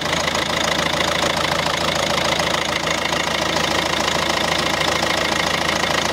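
Citroën C4 1.6 HDi four-cylinder turbodiesel engine idling steadily, heard close up with the bonnet open, with a fast, even diesel clatter.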